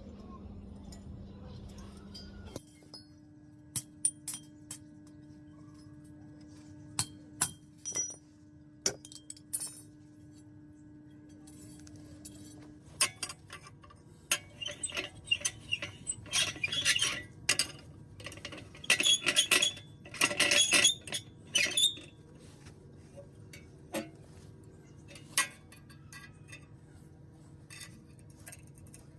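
Metal pieces clinking and tapping: scattered sharp strikes, with a busy run of rapid clinks in the middle, over a faint steady hum.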